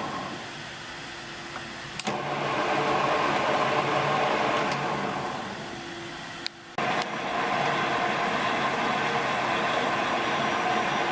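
Bernardo 165 Top Center lathe running, with a steady motor and spindle drone. The drone dies down twice and comes back abruptly with a click, about two seconds in and just before the middle.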